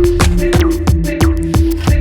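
Background electronic music with a fast, steady drum beat and held bass notes.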